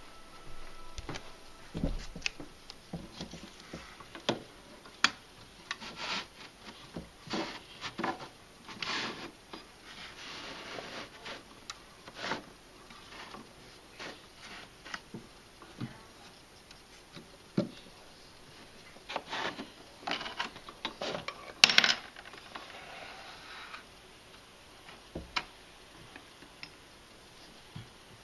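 A hand handling small objects in a miniature room: scattered light taps, clicks and rubbing, with one sharper click about 22 seconds in.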